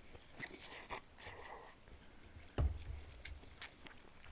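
Faint close-up eating sounds: a person chewing a mouthful of japchae glass noodles, with small scattered clicks and scrapes. A soft thump a little past halfway is the loudest sound.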